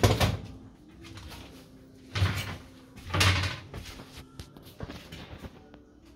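Pneumatic folding passenger doors of a Karosa B732 city bus opening: two loud bursts of noise about a second apart, roughly two seconds in, after a sharp knock at the start.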